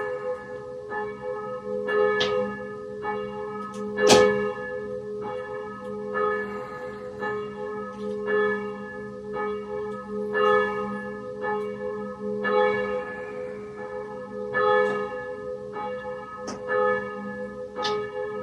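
Church bells ringing, struck about once a second with each stroke ringing on into the next over a steady low hum.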